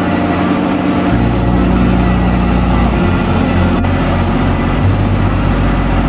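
Farm tractor's diesel engine running steadily, its low rumble shifting in strength a few times.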